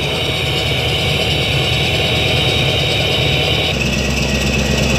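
Engine idle sound from a large-scale RC model Panzerhaubitze 2000 self-propelled howitzer, running steadily; the tone shifts abruptly to a deeper, fuller sound near the end.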